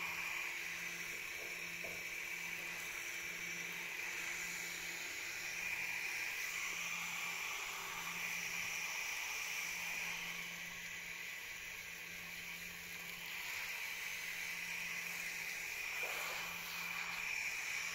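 Garden hose spray nozzle running, its shower spray landing steadily on soil and shrub leaves with an even hiss.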